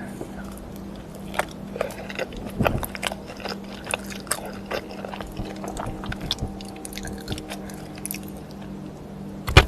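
Close-up eating sounds: biting and chewing with many small crunchy clicks over a steady low hum. One loud knock near the end.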